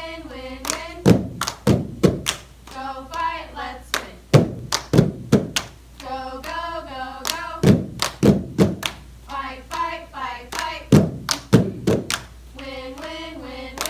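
A group of people clapping hands and slapping the mat and their legs in a rhythmic hand-game routine, with voices singing together in short phrases between the sharper claps and slaps.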